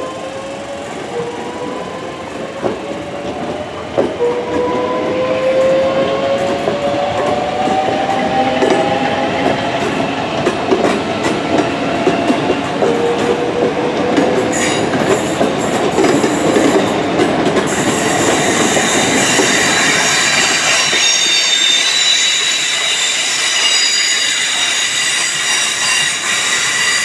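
A Southeastern Class 465 Networker electric train pulls out: its traction motors whine, rising in pitch as it gathers speed, and the wheels click over rail joints. In the second half, high-pitched whining and squealing from the train and its wheels takes over.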